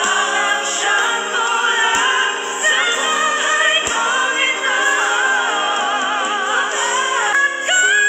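A group of pop singers singing together in harmony over a live musical backing. Near the end a single female voice takes over on a long held note.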